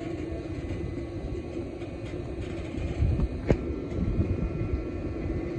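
A steady low rumble, with a single sharp knock about three and a half seconds in.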